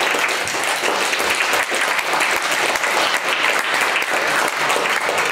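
Audience applauding steadily at the end of a poem reading.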